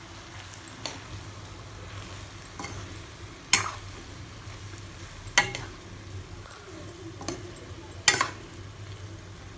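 Stainless-steel spatula stirring and turning cooked biryani rice in a nonstick kadai, with a soft scraping through the rice and about five sharp clanks of metal against the pan, the loudest near the middle and near the end.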